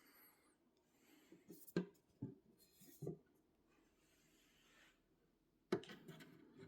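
Quiet handling sounds: a few soft knocks and rubs about two to three seconds in, then a sharper knock near the end followed by light rustling, as parts and packaging of an espresso machine are handled.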